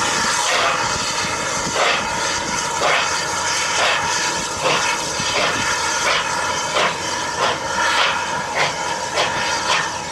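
BR Standard Class 2 2-6-0 steam locomotive 78019 pulling a train, its exhaust chuffs quickening from about one a second to about two a second as it gathers speed. Wind rumbles on the microphone throughout.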